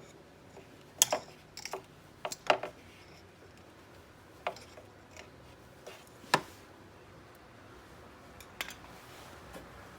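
Irregular sharp metallic clicks and taps, about eight in all, the loudest about a second in and about six seconds in, as a metal pick works against the ATV winch drum to push the end of a synthetic winch rope into the drum's hole.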